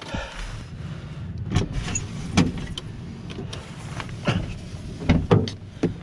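A 2007 VW New Beetle's driver's-door interior handle and latch being worked again and again, giving several sharp clicks and knocks over a steady low rumble; the handle is failing to release the door because its new Bowden cable was not located in its holder.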